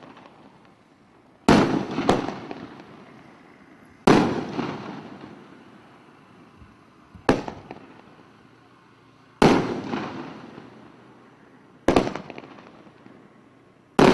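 Consumer aerial firework shots going off one after another, five sharp bangs about every two to three seconds, each trailing off over a second or two. Two of the bangs are doubled, with a second report a fraction of a second later.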